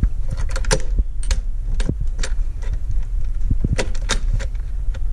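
Clicks and light rattles of throttle cable ends and their plastic fittings being handled and snapped into a powder-coated throttle cable bracket: about a dozen scattered sharp clicks over a steady low rumble.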